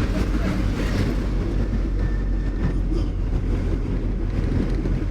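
Steady low rumble of a car's engine and tyres on the road, heard from inside the moving vehicle.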